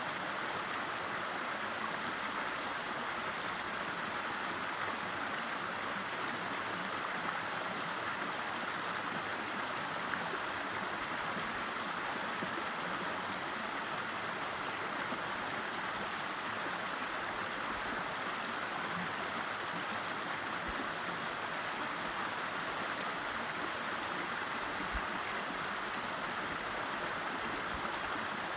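River water rushing steadily over rocks: a constant, even rush without pauses.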